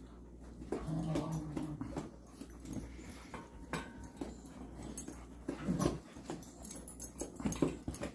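Dogs playing at close quarters: a short, low, pitched dog vocalisation about a second in, followed by soft whimpers and scattered scuffling clicks.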